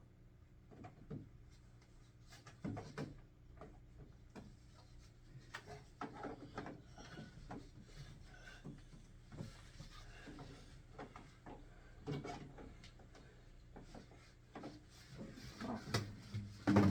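Plastic parts of a portable air conditioner being handled and fitted together: irregular knocks, clicks and rubbing, with a few louder knocks near the end, over a low steady hum.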